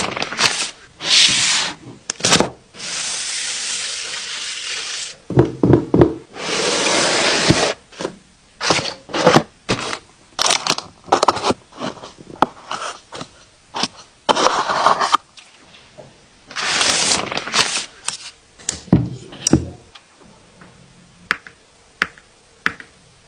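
Packaging and plastic being handled around a mechanical keyboard: rustling and scraping that last a second or two at a time, broken by knocks and clicks.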